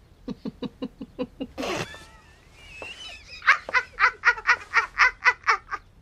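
Laughter that starts as low, stifled giggles in quick pulses with a breathy burst, then breaks into a loud, high-pitched laugh at about four pulses a second.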